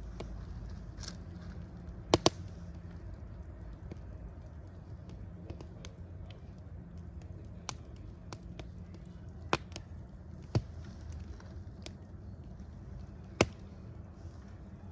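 Fire burning with a steady low rumble, scattered small crackles and a few sharp pops: two close together about two seconds in, then more spread through the second half.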